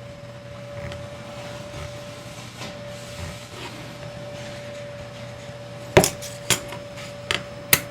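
Quiet handling of a thin screwdriver prying a lanyard tube out of a knife's G10 scale, then about six seconds in a sharp click as the tube pops free, followed by a few lighter clicks.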